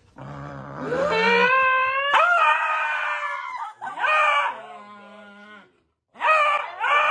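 Beagle howling: a long howl that rises in pitch and then holds, a shorter one about four seconds in, and another starting near the end.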